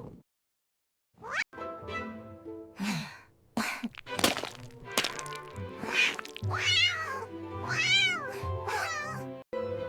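A cat meowing again and again over background music, the calls rising and falling in pitch. The sound starts after about a second of silence.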